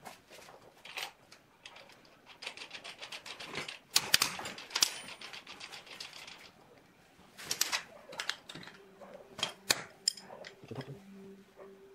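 Steel nut and washer being run down a threaded rod by hand, a quick run of small metallic clicks and rattles, followed near the end by a few sharper clinks of an open-end spanner on the nut.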